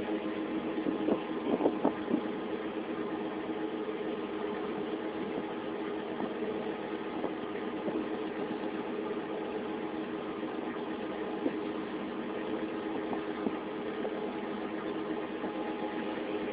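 Sailboat's engine running steadily under way, an even drone with several steady tones. A few light knocks about one to two seconds in.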